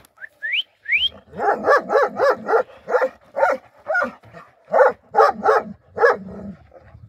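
A large livestock guardian dog barking repeatedly, about a dozen loud barks at a steady pace. It is preceded by three short rising whistles in the first second.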